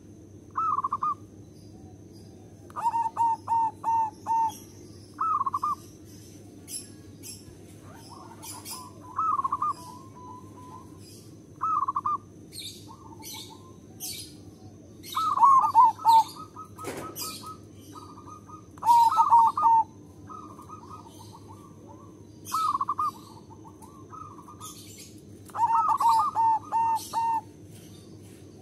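Zebra dove cooing: short phrases of quick, soft notes repeated every few seconds, some running into stuttering series of four or five notes. High-pitched chirping of other birds is in the background, and there is a single sharp knock about halfway through.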